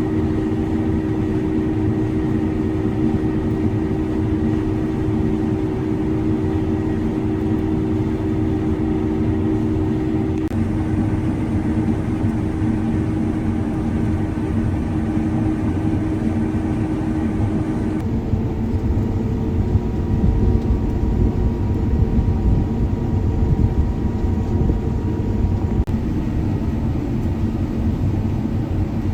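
Combine harvester running steadily while cutting wheat, a continuous engine and machinery hum with a steady tone. The hum shifts abruptly about ten seconds in and again a little past the middle.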